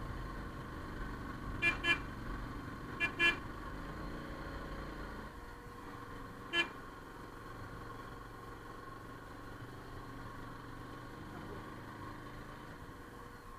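Vehicle horn tooting in short beeps: two quick pairs, then a single toot a few seconds later, over a steady low engine and road hum.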